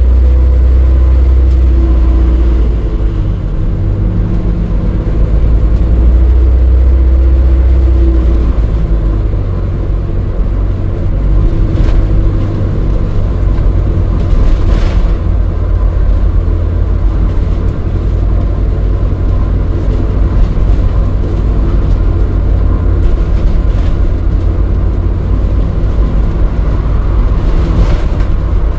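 Alexander Dennis Enviro400 diesel-electric hybrid double-decker bus heard from inside the lower deck while driving: a steady low drivetrain and road rumble with a faint high whine, and a few brief clicks or rattles around the middle and near the end.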